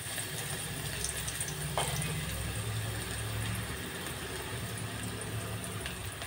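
Chopped onion frying in hot oil in a steel pot: a steady sizzle, with a low hum underneath and a light tap about two seconds in.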